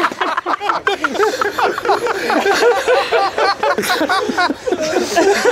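Loud, continuous human laughter: a rapid, unbroken run of short "ha" sounds.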